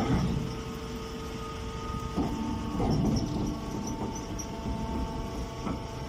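Straw baler's motor running with a steady hum over a low rumble, with a few clunks about two, three and six seconds in.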